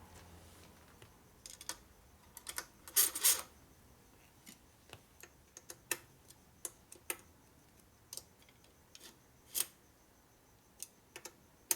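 Scattered light clicks and taps of bolts and hand tools being handled while the cam cover goes onto a shovelhead engine, with a short cluster of louder clicks about three seconds in.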